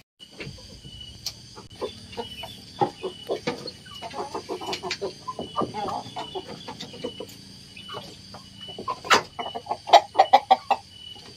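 A flock of domestic chickens clucking, a run of short calls that grows busier and louder near the end, with a sharp click about nine seconds in. A steady high-pitched hum runs underneath.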